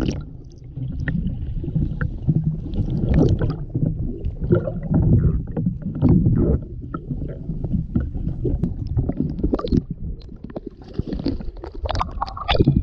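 Muffled underwater rumble and sloshing picked up by an action camera held just below the lake surface, with irregular clicks and knocks. Near the end the camera breaks the surface with a burst of splashing.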